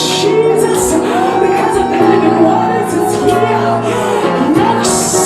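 Worship music with singing over steady held chords.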